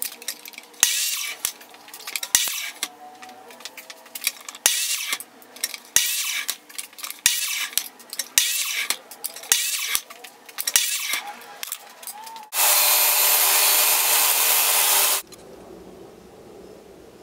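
Miter saw chopping a wooden dowel into short pegs: about ten quick cuts roughly a second apart, each a brief burst of blade noise with a sharp snap. Near the end a louder, steady machine noise runs for about two and a half seconds.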